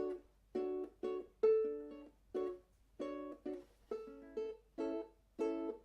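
Background music: a plucked string instrument playing short chords, about two a second, each note struck sharply and dying away.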